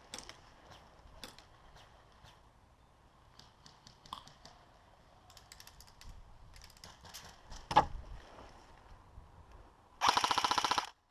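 Quiet stretch of scattered light clicks and one sharp crack about two-thirds of the way in, then near the end a loud, rapid full-auto burst from an airsoft rifle, lasting just under a second and cutting off suddenly.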